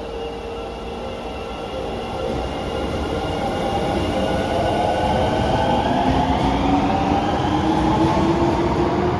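Osaka Metro 22 series subway train pulling away, its traction motors whining in several tones that rise steadily in pitch as it accelerates, growing louder.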